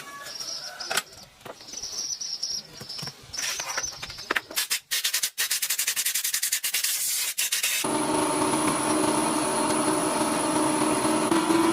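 Scraping and rubbing noises with scattered sharp clicks, as of hand repair work. About eight seconds in, it cuts suddenly to a steady mechanical hum.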